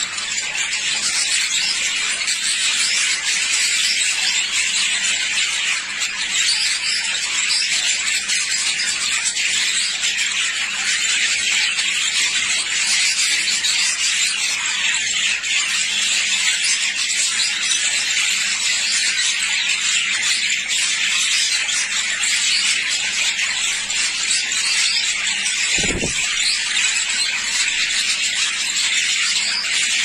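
Many budgerigars chattering in an aviary, a steady high-pitched wash of overlapping chirps. A brief low thump comes near the end.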